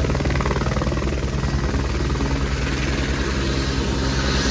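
Helicopter XU-018 running on the ground just after landing: a steady high turbine whine over the low, evenly pulsing beat of the rotor.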